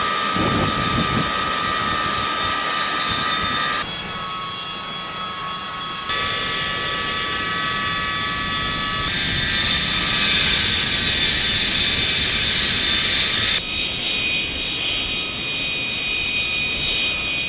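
AV-8B Harrier II's Pegasus turbofan jet engine running on the deck, a steady roar with a high-pitched whine that shifts abruptly in pitch and level several times.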